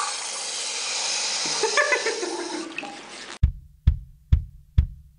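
A wall-mounted urinal flushing, water rushing into the bowl and tailing off, set off by short-circuiting the two wires of its electronic flush control. About three and a half seconds in it cuts off and a drum-machine beat starts, about two kick-drum hits a second.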